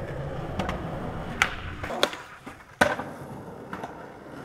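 Skateboard wheels rolling over rough pavement, a low rumble that stops about two seconds in. Several sharp clacks of the board are heard, the loudest near three seconds in.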